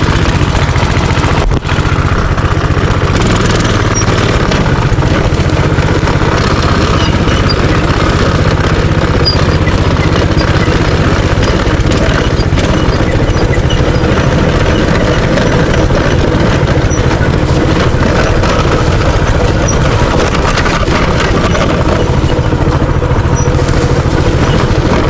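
Minibike's small engine running steadily under throttle while being ridden, with a brief dip about one and a half seconds in.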